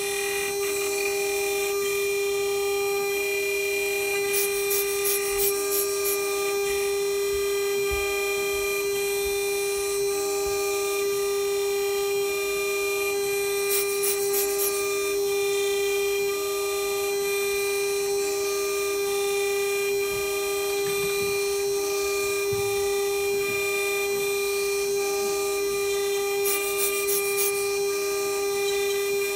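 Small electric rotary grinder grinding down an iPhone 7 logic board: a steady, even motor whine, with three short bursts of high scratching as the bit bites into the board.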